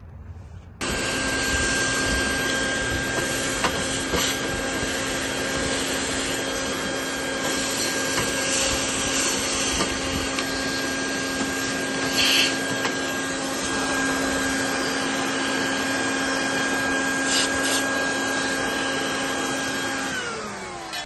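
Vacuum cleaner switching on about a second in and running steadily with a whine, sucking wood shavings and soot out of an RV refrigerator's burner compartment, with a few short clicks along the way. Near the end it is switched off and winds down, falling in pitch.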